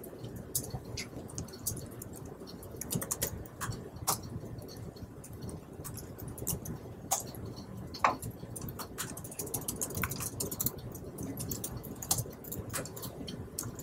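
Typing on a laptop keyboard: scattered key clicks in short runs over a low room hum, with a short squeak about eight seconds in.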